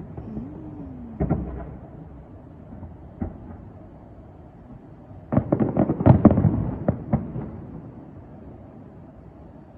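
Fireworks bursting: a single bang about a second in, another near three seconds, then a quick volley of bangs about five seconds in that dies away.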